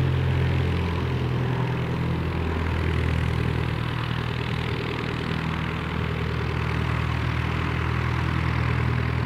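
De Havilland Gipsy Major 10 four-cylinder inverted inline engine of an Auster light aircraft running steadily at low power, propeller turning, as the aircraft taxies on grass.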